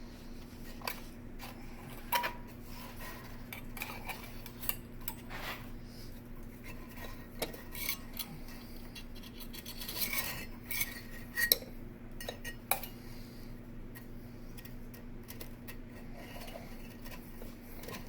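Irregular light metallic clinks and rattles of steel cable and hardware being handled while an anvil hold-down is fitted, a few strikes ringing briefly, the busiest stretch just past the middle. A steady low hum runs underneath.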